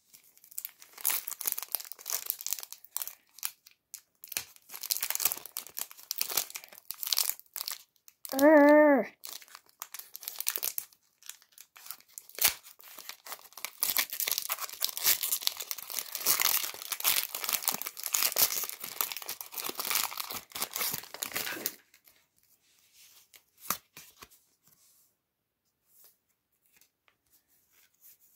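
Foil wrapper of a Pokémon trading card booster pack crinkling and tearing as it is pulled open by hand, with one short hum from a person's voice about eight and a half seconds in. After about 22 s the crinkling stops and only a few faint ticks of the cards being handled remain.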